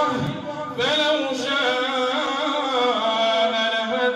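A man chanting Quranic recitation in a melodic style, amplified through a microphone: long held notes with ornamented bends. The voice breaks briefly near the start, and a new phrase begins about a second in.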